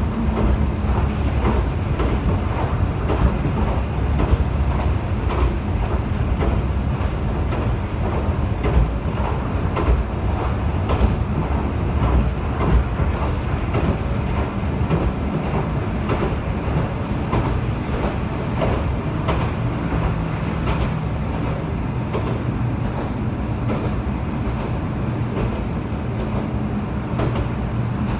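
Kanto Railway KiHa 2400-series diesel railcar running along the line, heard from inside the car: a steady rumble of the diesel engine and wheels on the rails, with the engine hum shifting in pitch and scattered faint clicks from the track.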